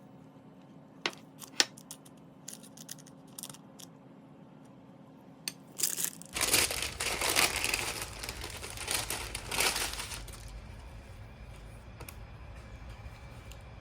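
Crisp butter-fried kataifi filling in a pistachio chocolate slab crunching and crackling, after a few scattered light clicks; the dense crunching lasts about four seconds from around the middle.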